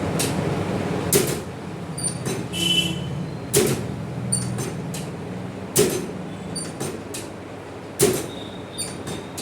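Four sharp knocks or thuds, about one every two and a quarter seconds, over a steady low hum, with a few faint small clicks between them.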